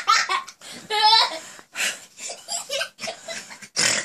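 People laughing, with high-pitched giggling and excited exclamations in short bursts.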